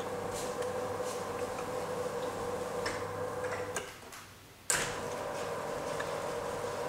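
Electric motors of motorized roller blinds running with a steady hum and faint ticking as the blinds travel. The hum cuts out just before four seconds in, and a sharp click brings it back less than a second later.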